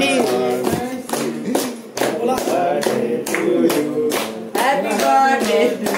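A group of people clapping in a steady rhythm, about three claps a second, while voices sing along, a birthday cake-cutting song.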